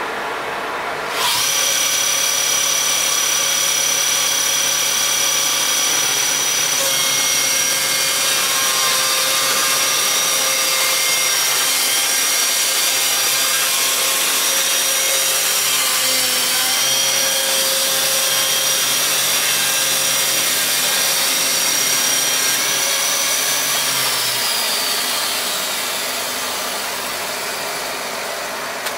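Electric chainsaw mill with automatic feed starting up about a second in and ripping along an oak log with a steady high whine. Near the end it is switched off and winds down, the whine falling in pitch.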